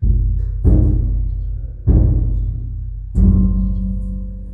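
A large gong struck four times, about a second apart, each stroke ringing on with a low hum that fades slowly.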